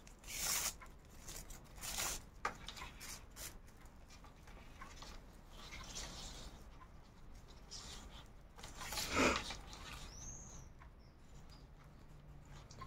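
Raffia paper yarn rustling and crackling as a needle and raffia thread are pulled through a crocheted strip: faint scattered scratches, with one louder rustle about nine seconds in.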